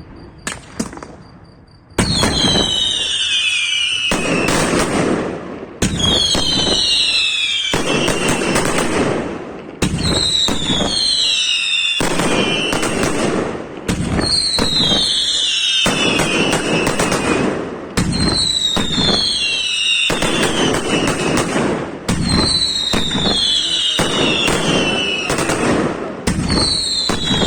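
Fireworks display: a few pops, then from about two seconds in a loud volley goes off about every four seconds. Each volley is a sharp bang followed by several whistles falling in pitch and crackling.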